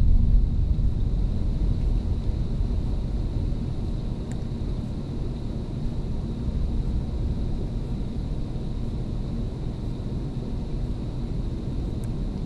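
Flash-flooded creek running high: a steady, low rushing rumble of fast water. A louder swell at the start dies away over the first few seconds.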